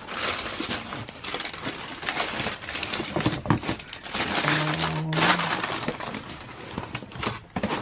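Continuous rustling and crinkling of shoebox wrapping paper and cardboard as a sneaker box is opened and the shoes are unwrapped, with many small crackles throughout. A brief low hum about halfway through.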